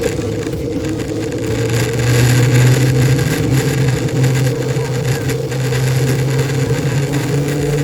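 An engine running steadily, its low hum rising slightly in pitch about two seconds in.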